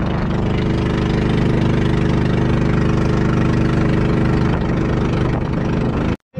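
Outrigger boat's (bangka's) engine running steadily under way, a loud, even drone that cuts off abruptly near the end.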